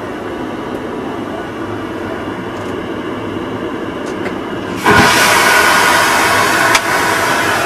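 Steady airliner cabin drone, then about five seconds in a sudden loud rushing whoosh of an aircraft vacuum toilet flushing, with a sharp click partway through.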